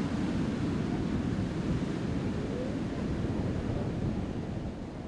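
Ocean surf breaking, a steady low rumbling wash with wind, starting to fade out near the end.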